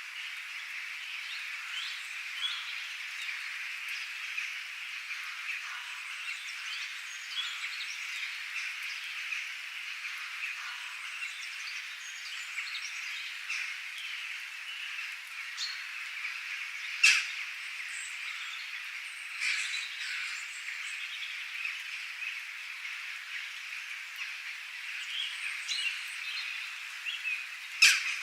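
Birds chirping and calling over a steady high-pitched chorus, with two louder sharp calls, one a little past halfway and one near the end.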